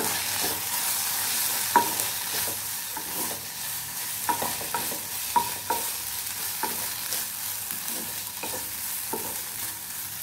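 Vegetables and paneer sizzling in a non-stick kadai as a spatula stirs and tosses them, with a steady frying hiss and irregular light knocks and scrapes of the spatula against the pan, the sharpest about two seconds in.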